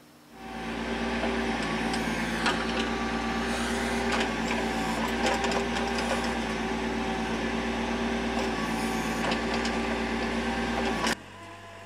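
Kubota tractor-loader-backhoe's diesel engine running steadily while its backhoe bucket digs, with occasional clanks and scrapes of the bucket in the soil. The sound cuts off suddenly near the end.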